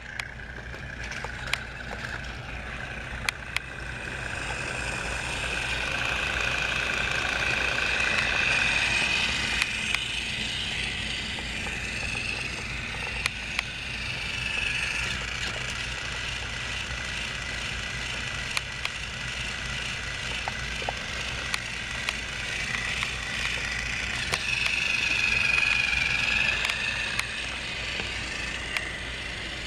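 Battery-powered TrackMaster motorized toy train engine whining steadily as it runs around a plastic track, hauling a truck. The whine swells twice as the engine comes close, with scattered sharp clicks.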